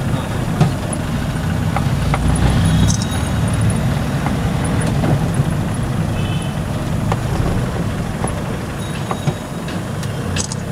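Steady low engine and road rumble of a car heard from inside the cabin as it moves slowly through dense street traffic, with scattered faint clicks and a few brief high-pitched tones.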